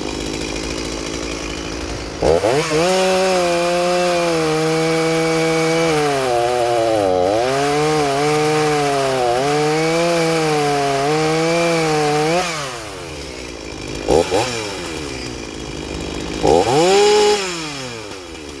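Rebuilt Shindaiwa 488 two-stroke chainsaw idling, then revved up about two seconds in and held at high revs for about ten seconds, its pitch dipping a few times, before dropping back to idle. Two short blips of the throttle follow.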